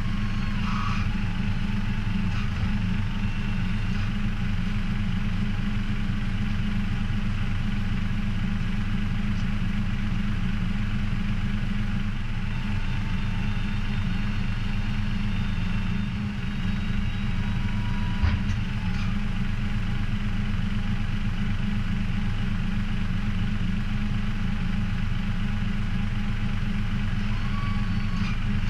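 Heavy engine idling steadily with an even low rumble, and a single short knock about eighteen seconds in.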